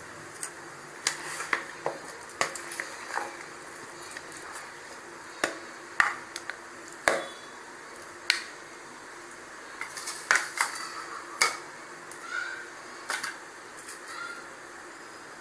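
Serving spoon clinking and tapping against bowls as fruit salad and ice cream are dished up: scattered light clicks and knocks at uneven intervals over a steady faint hiss.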